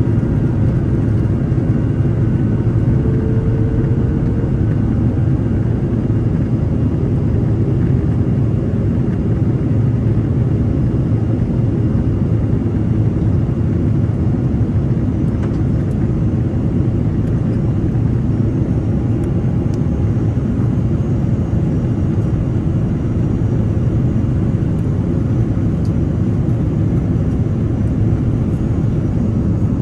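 Steady low rumble inside the cabin of an Airbus A330-300 in flight during descent: airflow noise and its Rolls-Royce Trent 700 engines, even in level throughout.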